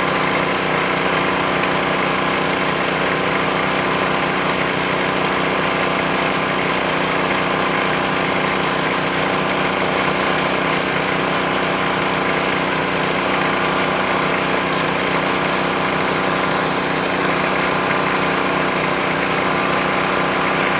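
Small engine of a bore-well drilling machine running steadily at an even speed.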